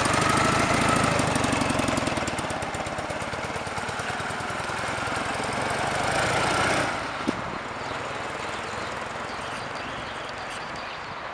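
Ural M-63 motorcycle's flat-twin engine pulling away and riding past with a fast, even exhaust beat. About seven seconds in it drops suddenly to a faint, distant running as the bike rides off.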